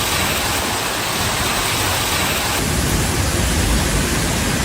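Heavy thunderstorm rain and wind, a steady dense rush of noise. About halfway through the sound shifts and gets deeper, with more low rumble.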